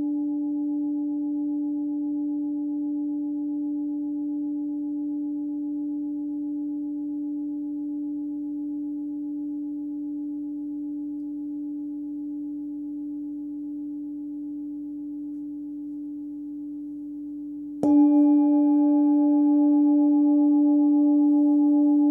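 Hand-forged singing bowl ringing on its deep tone of about 291 Hz (D), slowly fading with a gentle waver. About 18 seconds in it is struck again and rings out louder and brighter, with more overtones.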